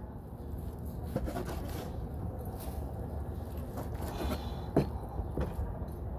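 Broad-bladed knife cutting through goat skin onto a plastic cutting board: a few scattered cuts and scrapes, the loudest about three-quarters of the way in, over a steady low background rumble.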